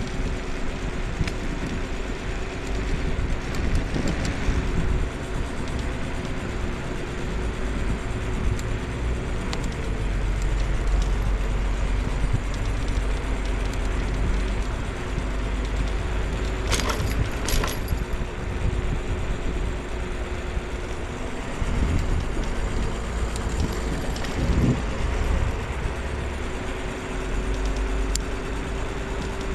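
Riding a scooter along city streets: steady low rumble of wheels on the road and wind with a thin steady whine, and two sharp knocks a little past the middle.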